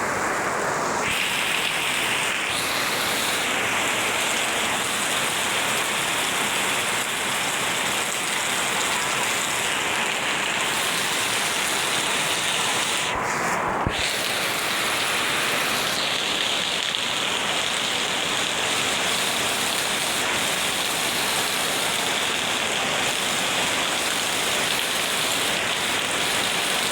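Heavy rain falling and pattering on surfaces in a steady, dense hiss, with one brief click about halfway through.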